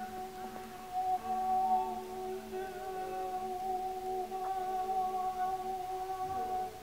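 Improvised vocal sound poetry: voices holding long, steady hummed tones, a high held pitch over lower ones, breaking off shortly before the end.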